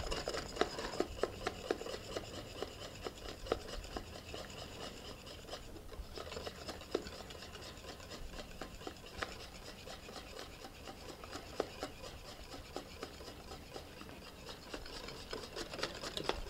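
Wire whisk beating thick egg-yolk sabayon in a glass bowl: a steady run of rapid scraping clicks of the wires against the glass. Warm clarified butter is being slowly whisked in to emulsify a béarnaise sauce.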